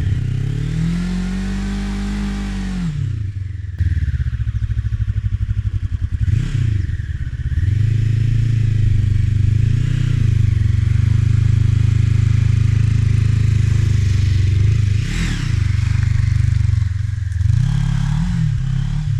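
GR400 motorcycle engine running on the move: the revs climb for the first few seconds and fall away at a gear change, then hold fairly steady, with a few short rises and drops near the middle and end.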